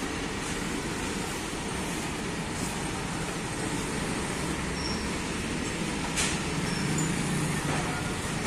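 Indian Railways goods train's covered wagons rolling past, a steady rumble of wheels on rails with one sharp knock about six seconds in.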